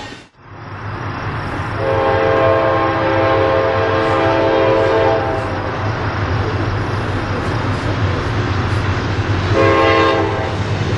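Approaching diesel locomotive sounding its air horn: one long blast of about three seconds, then a short blast near the end, over the steady rumble of the train.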